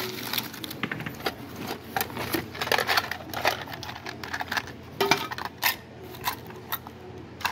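Newspaper wrapping rustling and crinkling as objects are pulled out of a bag, then a clear plastic box of small metal pins and badges being handled, with sharper clicks and rattles from the box and its contents about five seconds in.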